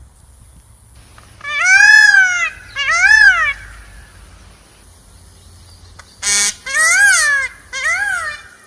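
Peafowl calling loudly: two drawn-out, rising-then-falling wailing calls, then after a pause a short harsh rasping note and two more wailing calls near the end.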